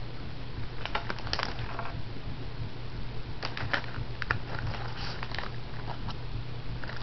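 A cat crunching Cheez-It crackers: sharp crackly clicks in short clusters about a second in and again from about three and a half to five and a half seconds in, over a low steady hum.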